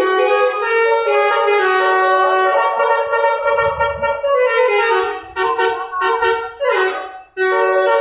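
Bus telolet horn, a multi-tone musical air horn, playing a tune of stepped notes. It breaks into short choppy blasts about five seconds in, cuts out briefly near the end, then resumes.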